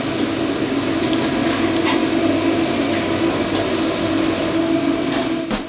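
Steady hum of commercial kitchen machinery, with a few light clicks near the end.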